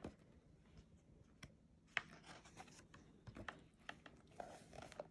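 Faint rustling and light clicks of a hardcover picture book's pages being handled and turned, with a sharper tick about two seconds in.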